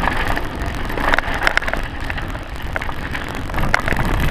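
Mountain bike rolling down a rough dirt trail: steady tyre and wind noise on a helmet-mounted action camera, with sharp knocks and rattles from the bike as it goes over bumps.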